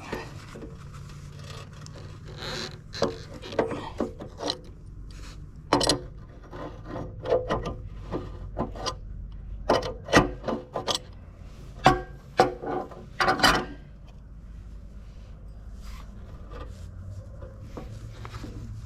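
Hand work on metal hydraulic fittings and tools: a run of irregular clinks, knocks and scraping, thickest from about 3 to 14 seconds in, some strikes ringing briefly.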